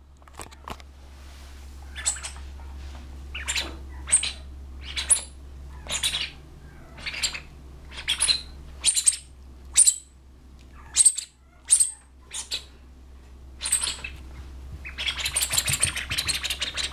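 Rubber squeaky toy squeezed by hand, giving short high-pitched squeaks about once a second, then a faster, denser run near the end.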